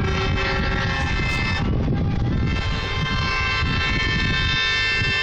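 Truck air horns sounding together in a long, held chord from an approaching convoy of lorries, over a low rumble.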